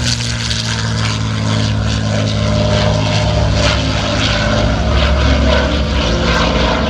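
P-51 Mustang fighters' Packard Merlin V-12 piston engines running in flight, a steady propeller-aircraft drone whose low end grows deeper and stronger about five seconds in.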